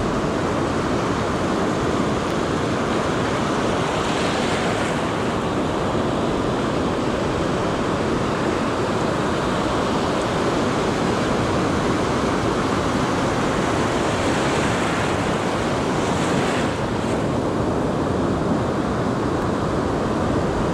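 Ocean surf breaking and washing in over the sand, a steady rushing that swells in hiss a few times as waves come in, with wind buffeting the microphone.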